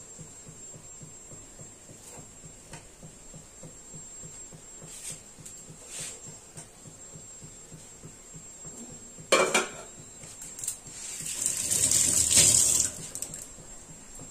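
Light clinks of steel utensils, then a sharp clank of a steel pot lid about nine seconds in. Near the end comes a rush of hissing and splashing that swells for about two seconds and dies away as water goes into the hot kadai of mustard-poppy fish curry.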